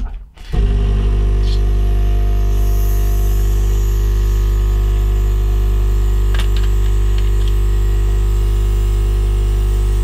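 Hot air rework gun switched on about half a second in, its fan running with a steady low hum and rushing air.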